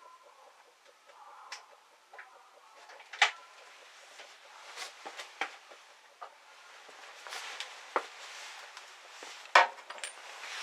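Irregular clicks and knocks of things being handled, with two sharper knocks about three seconds in and near the end.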